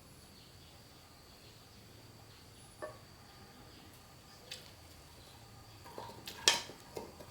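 Faint steady high-pitched insect chirring, with a few sharp clinks of tableware, like chopsticks or a spoon on a bowl during eating: single clicks about three and four and a half seconds in, then a louder quick run of clinks near the end.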